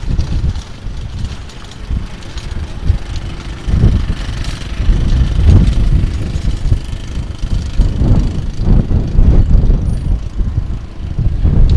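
Gusty wind buffeting the microphone with a low, uneven rumble, stronger from about four seconds in as a storm blows in.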